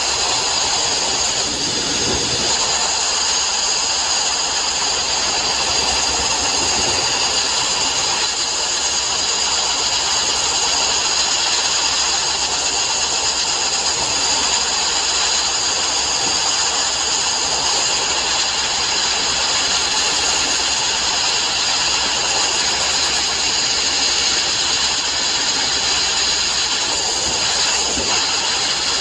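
Sandblasting: a loud, steady hiss of compressed air and abrasive rushing from a blast nozzle.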